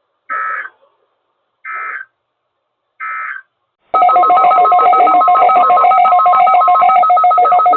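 Three short buzzy digital data bursts about 1.4 seconds apart, the SAME end-of-message code on NOAA Weather Radio that closes a broadcast test. About four seconds in, a loud electronic alert tone starts abruptly, several pitches pulsing rapidly like a ringing telephone, as the next test alert begins.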